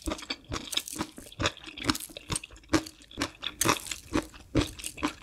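Close-miked chewing of crunchy food, a steady run of sharp crunches about two to three a second.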